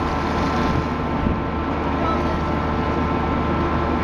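Dive boat's machinery running with a steady, unchanging hum, under a constant hiss of water seething at the surface where swarms of small fish feed in the boat's lights.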